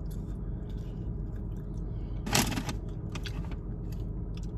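Steady low hum inside a parked car, with one short crackling rustle about halfway through and a few faint clicks after it.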